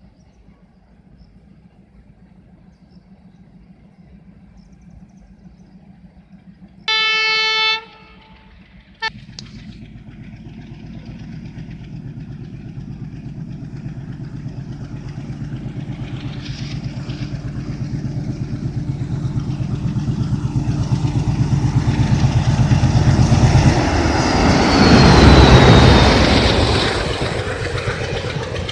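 ALCO WDM-3A diesel locomotive sounding one horn blast about seven seconds in and a short toot soon after. Its 16-cylinder engine then grows steadily louder as it approaches, peaks as the locomotive passes, and gives way to passenger coaches rolling by.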